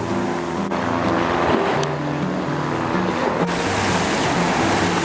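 Background music with a slow melody over the steady wash of ocean surf.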